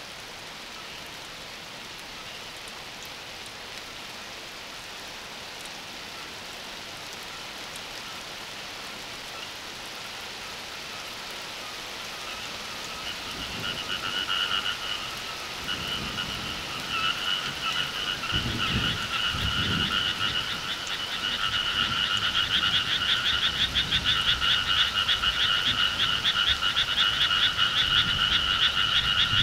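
A chorus of frogs calling in rapid, pulsed trills. The chorus is faint at first over a steady hiss of rain, starts up about halfway through, and builds into a dense, loud chorus toward the end. A faint low rumble sits under it in the middle.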